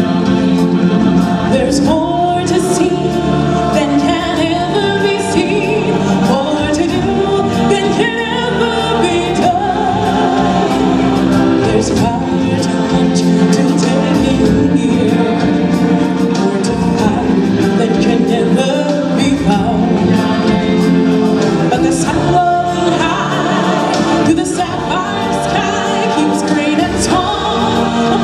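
A woman singing lead into a microphone over live stage-show music, with a choir backing her. Her long, held notes waver with vibrato.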